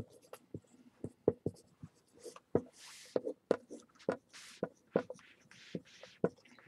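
Dry-erase marker writing on a whiteboard: a steady run of quick taps of the felt tip against the board mixed with short hissy strokes as letters are drawn.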